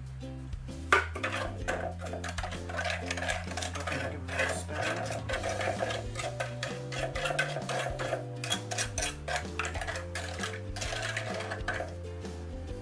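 Gloved fingers scraping and tapping against the inside of a bundt pan while spreading brown sugar through melted butter: a quick run of small scrapes and clicks, starting with a sharp knock about a second in. Soft background music with held low notes underneath.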